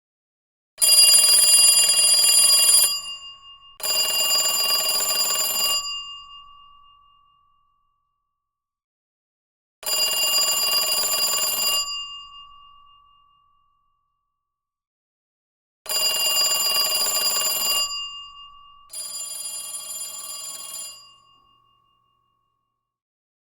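Telephone bell ringing in bursts of about two seconds: a double ring, then a single ring, then another double ring whose second ring is quieter. After each burst the bell's tone hangs on briefly as it dies away.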